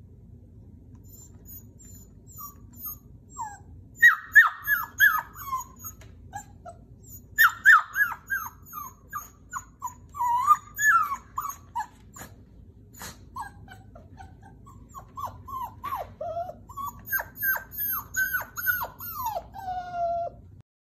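Young puppy whimpering and crying in quick runs of short, high cries that each slide down in pitch, three bouts of them, the last ending in one longer falling whine.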